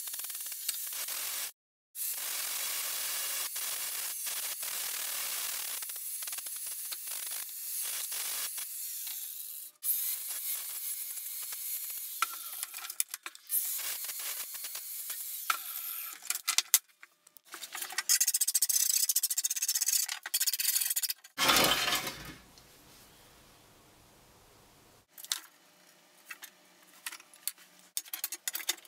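Makita angle grinder dressing the edges of a sheet-metal dustpan: a rasping hiss of disc on metal in several passes that break off abruptly. Near the end it gives way to quieter scattered clinks of the metal being handled on the bench.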